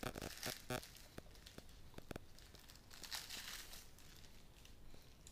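Faint crinkling and rustling as a cardboard gadget box and its loose plastic wrap are handled with gloved hands, with a scatter of light clicks and taps and a longer rustle about three seconds in.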